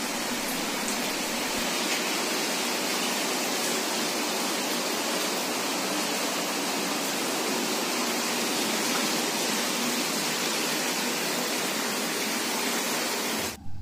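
Heavy rain falling steadily, a dense even hiss that cuts off abruptly just before the end.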